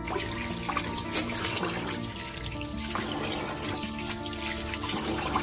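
Kitchen tap running steadily, the water splashing onto a raw half chicken in a metal bowl as it is rinsed by hand.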